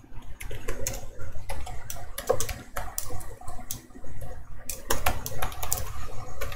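Computer keyboard being typed on: irregular, quick key clicks as a line of code is entered, over a low steady hum.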